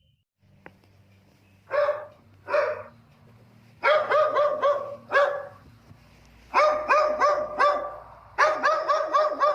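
A dog barking: two single barks, then three quick runs of several barks each.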